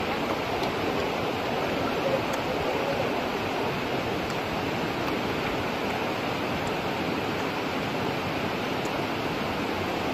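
Steady rushing of running water, with a few faint high ticks.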